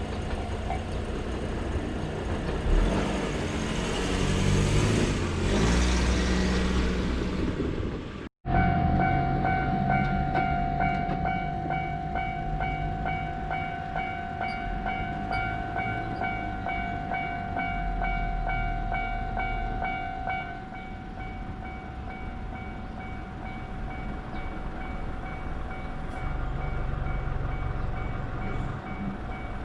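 A train passes with a loud rushing rumble. After a short break, a Japanese level-crossing warning bell rings steadily over the low rumble of a passing train, getting quieter about twenty seconds in.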